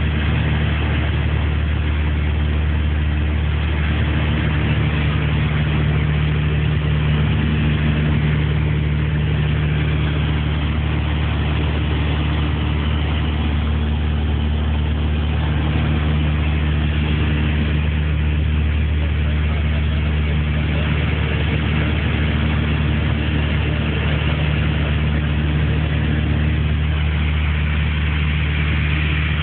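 Piper Aztec's twin piston engines and propellers droning steadily in cruise, heard from inside the cabin.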